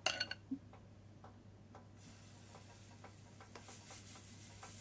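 A metal spoon clinks against the bowl of pancake batter with a short ringing tone, followed by light taps and scrapes as the batter is scooped. Near the end a faint sizzle begins as the batter is spooned onto the hot griddle.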